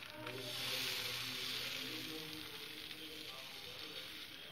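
Moong dal batter sizzling on a hot nonstick tawa as it is spread with a ladle, the sizzle fading toward the end, with background music.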